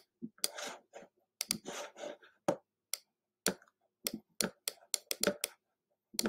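Stylus tapping and stroking on a tablet's touchscreen while words are handwritten: an irregular series of sharp clicks with short scratchy strokes between them.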